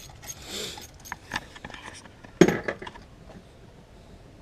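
Small metal parts and tools being handled: a brief scrape, a few light clinks, then one louder knock with a short ring about two and a half seconds in.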